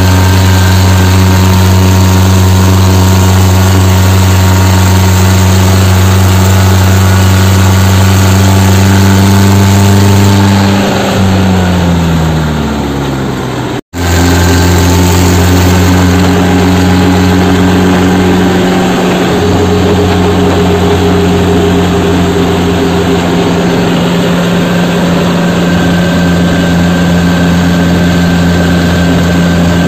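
Tractor diesel engine running at a steady speed while driving, heard loud from the driver's seat. About ten seconds in, the engine note falls as it slows. After an abrupt cut it runs steady again.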